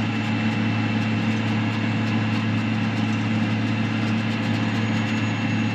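John Deere tractor's diesel engine running steadily while driving, heard from inside the cab, with a steady thin high whine over the low engine hum.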